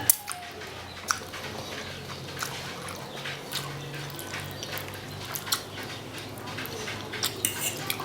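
Close-miked mukbang eating sounds: wet chewing and mouth smacks, with scattered sharp clicks. The loudest clicks come just after the start and about a second in.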